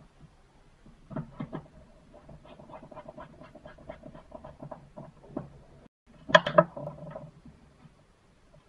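A small screwdriver clicking and scraping against the plastic and metal parts of a BlackBerry Bold 9790 being taken apart: a run of small, quick clicks, then a louder cluster of clicks and rattles about six and a half seconds in as the parts are handled.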